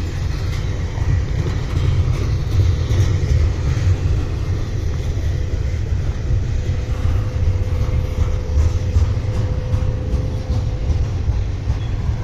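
Intermodal freight train climbing a mountain grade: a steady, heavy low rumble that carries on without a break. A faint thin whine holds for a few seconds just past the middle.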